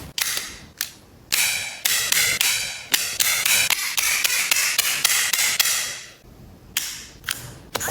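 A rapid run of sharp clicks or snaps, about three to four a second, pausing briefly about a second in and again near the end.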